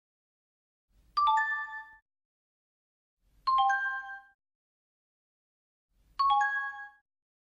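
A bright bell-like two-note chime, a quick 'ding-dong' of ringing tones. It sounds three times, about two and a half seconds apart, and each one fades within a second. The pitches shift a little from one chime to the next.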